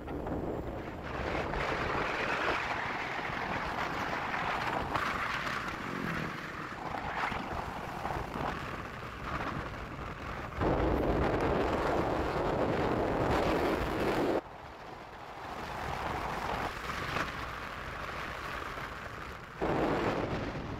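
Wind rushing over the microphone of a moving motorcycle, mixed with road and engine noise, a steady rumbling hiss that jumps louder or quieter abruptly a few times.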